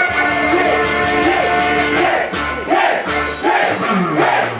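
Hip-hop beat with a looping melody playing loud over a PA, with a voice rapping over it from about halfway and the crowd shouting.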